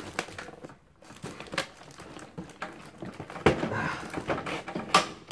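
Handling noise from a cardboard toy box and its packaging: rustling, crinkling and scattered clicks and knocks as the box is tilted and the wire ties holding the RC car are worked loose. There is a sharp click near the end.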